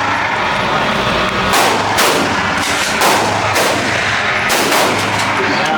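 Gunfire: about five single shots, some under half a second apart and others a second or more apart, each with a short ringing echo.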